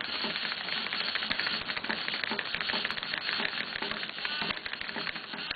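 LEGO Mindstorms NXT horse-racing machine running: its motors drive the horses along Technic tread-link tracks with a dense, continuous plastic clatter of rapid, irregular clicks.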